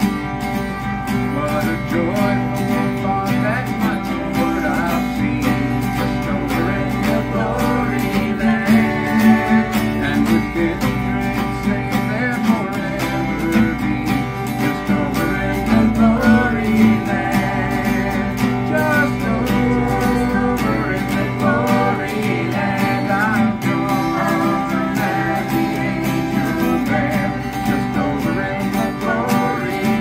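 A live acoustic country song: two acoustic guitars strumming with a fiddle playing the melody.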